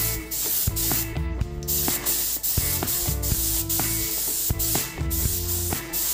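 Air spray gun hissing as it sprays paint onto a motorcycle engine cover, the hiss cutting out briefly twice as the trigger is let go. Background music plays under it.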